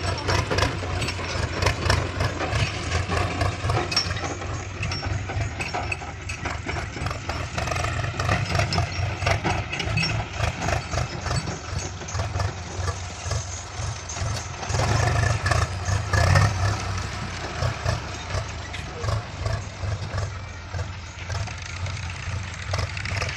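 Heavy diesel engine of a farm or earthmoving machine running, with a steady low hum and clattering ticks over it, growing louder for a moment about fifteen seconds in.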